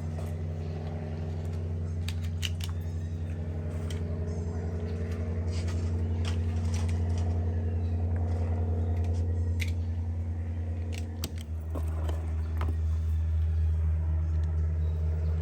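A steady low machine hum, dropping slightly in pitch about eleven seconds in, with scattered small metallic clicks and clinks of handled cartridges and gun parts.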